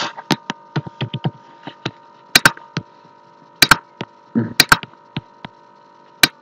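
Computer keyboard typing and mouse clicks: sharp separate clicks, quick at first, then spaced out and in close pairs, over a steady faint electrical hum.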